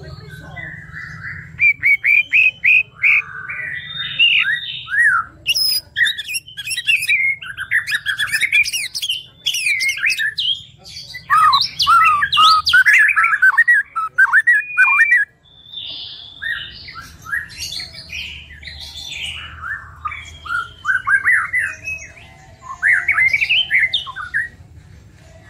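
White-rumped shama (murai batu) singing a long, varied song of rapid whistled and chattering phrases, with quick runs of repeated notes and a brief break about halfway through.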